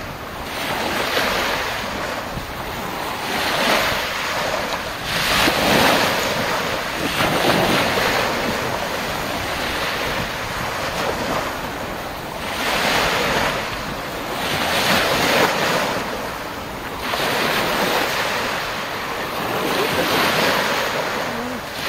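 Small waves breaking and washing up a shore of sand and pebbles, the surf noise swelling and easing every couple of seconds, with wind buffeting the microphone.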